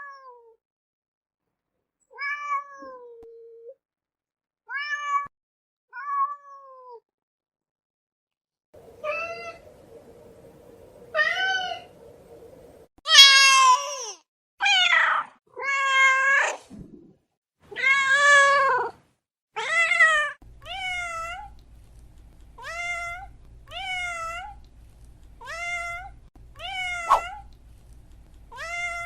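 A cat meowing repeatedly, about fifteen separate meows. The longest and loudest come in the middle. Shorter, quicker meows follow at about one a second near the end.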